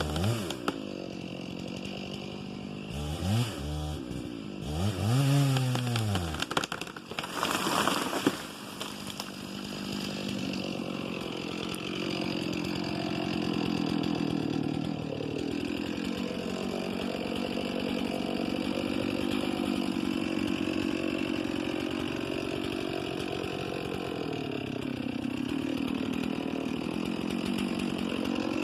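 Chainsaw revved up and down three times in quick blips. From about nine seconds in it is held at a steady high speed for the rest of the time, the pitch sagging briefly twice as it works through a cut in cedar.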